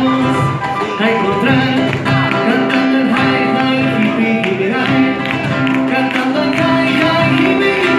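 Live band playing a Latin song, with plucked guitar and percussion keeping a steady beat.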